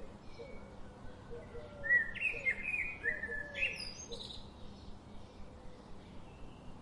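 Birds chirping: short gliding chirps, thickest in a burst about two to four seconds in, over a run of lower repeated notes.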